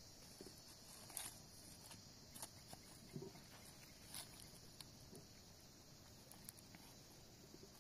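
Near silence: a faint, steady high insect chirring, with a few light clicks and knocks scattered through.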